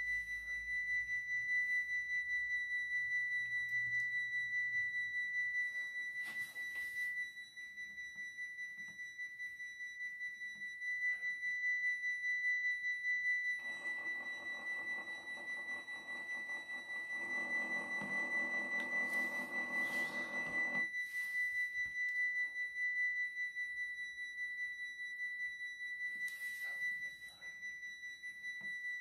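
Model Dutch level-crossing bells ringing electronically: a steady high ringing tone that pulses quickly, with the crossing closed and its red lights flashing. A lower rushing noise joins it for several seconds in the middle.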